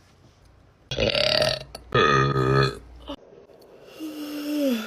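A woman's deep burps: two loud ones about one and two seconds in, then a longer one sliding down in pitch near the end.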